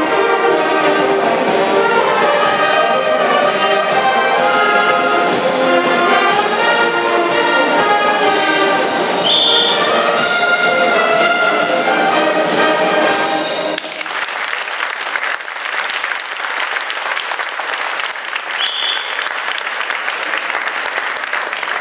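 Live brass band playing a march-like piece with a steady beat, which stops abruptly about two-thirds of the way through. Audience applause follows to the end.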